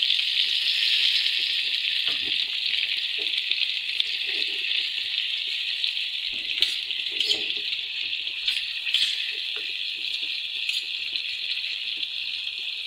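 Blended spinach with cumin sizzling in hot desi ghee in a pan, a steady hiss, while it is stirred, with a few sharp knocks of the utensil against the pan midway.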